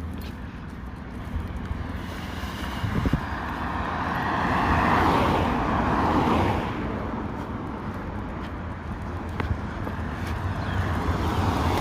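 Wind buffeting the microphone with a steady low rumble. A broad swell of rushing noise builds about four seconds in and fades a few seconds later.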